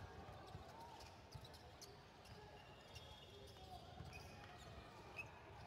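Faint sounds of a basketball game on a hardwood gym court: a ball bouncing in scattered knocks, with players' voices calling out.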